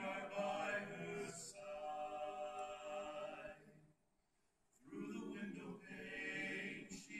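Male a cappella quartet singing in harmony: one sung phrase, a break of about a second, then a second phrase.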